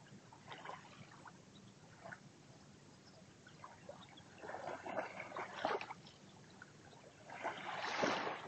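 Small waves lapping and washing up a sandy, pebbly shore. There are soft trickles, then louder washes about four to six seconds in, and the loudest wash comes just before the end.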